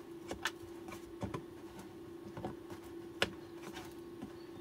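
Scattered light clicks and knocks, about half a dozen, from the e-bike battery pack's casing being worked at by hand, over a steady low hum.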